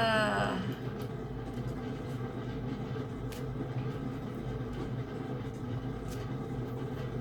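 A steady low rumble or hum runs under everything. A short falling vocal sound comes right at the start, and faint clicks are heard now and then.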